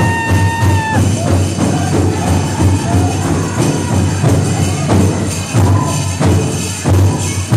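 Powwow drum struck in a steady, heavy beat, with a high held sung note near the start, and the bells on the chicken dancers' legs jingling in time.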